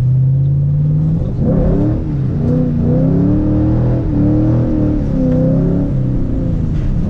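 Ford Mustang GT's 3-valve 4.6 L V8, heard from inside the cabin: a steady low note at first, then from about a second and a half in it revs up and its pitch wavers up and down with the throttle as the car is driven sideways through a turn on a wet road, at about quarter throttle.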